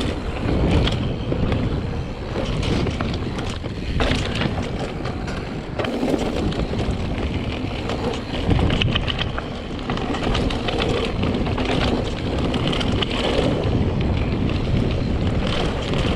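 Mountain bike riding down a dirt singletrack: wind rushing over the microphone, with the tyres running over dirt and the bike rattling and clicking over bumps.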